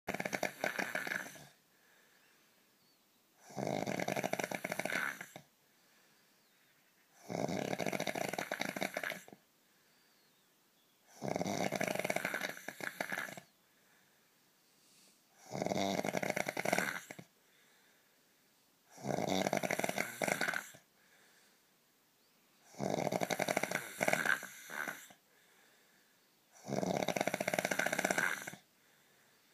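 A man snoring in a steady rhythm: about eight long snores, each lasting roughly two seconds, one about every four seconds, with quiet breathing between them.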